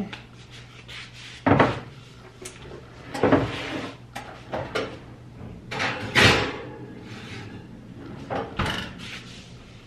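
Electric range oven door opened, a glass baking dish slid onto the oven rack and the door shut: a few separate knocks and clunks, the loudest about six seconds in.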